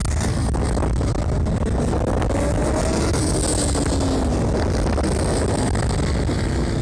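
Small motorcycle engines running on a track, their pitch rising and then falling as a bike accelerates and passes, over a steady low rumble.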